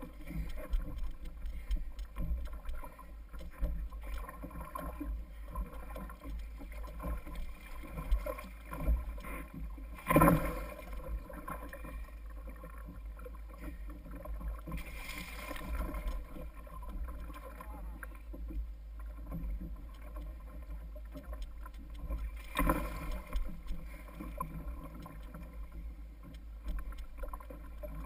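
Water lapping and splashing against a fishing kayak's hull over a steady low rumble. A sharp knock comes about ten seconds in, and brief louder splashy rushes come about fifteen and twenty-three seconds in.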